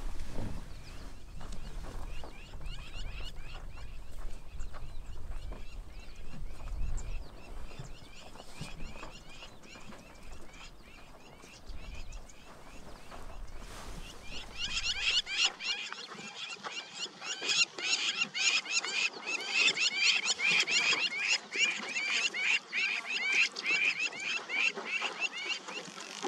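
Many birds chirping in a dense, rapid chatter that gets much louder from about halfway through. A low rumble runs under the first half.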